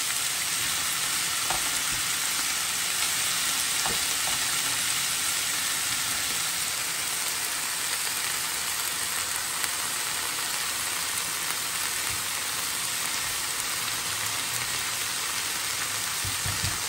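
Chicken strips and sliced bell peppers and onions sizzling steadily in hot oil in frying pans, with a spatula stirring the vegetables now and then.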